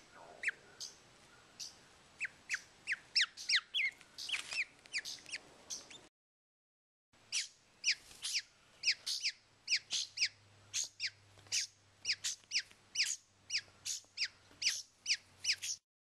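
Baby figbird begging with its beak gaping: a rapid series of short, sharp, high calls, each falling in pitch, about three a second. The calls stop for about a second near the middle.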